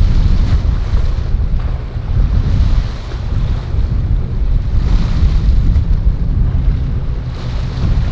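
Strong wind buffeting the microphone over rough sea waves, with a hissing surge of surf rising and falling every two to three seconds.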